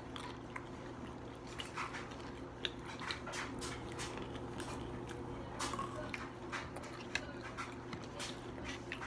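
Close-up eating sounds of fried chicken being bitten and chewed: irregular small crunches, clicks and mouth noises, over a steady low hum.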